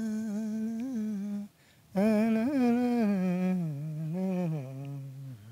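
A man humming a wordless melody in two ornamented phrases with a short break about one and a half seconds in. The second phrase steps down to a low held note near the end.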